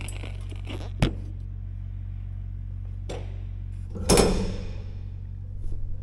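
Steel Unistrut channel knocking against a ribbed steel wall as it is set in place. There are a few sharp metallic clanks, and the loudest, about four seconds in, rings and dies away over a second or so, over a steady low hum.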